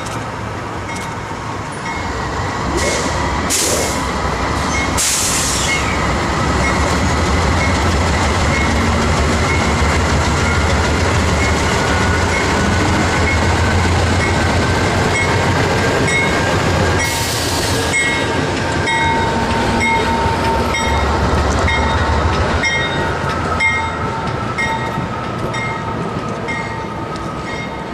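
Two CSX diesel locomotives pass at a grade crossing, their engines making a heavy rumble that grows loud about two seconds in and eases off past twenty seconds as the train clears. Through it, the crossing warning bell rings steadily, with a few short hissing bursts along the way.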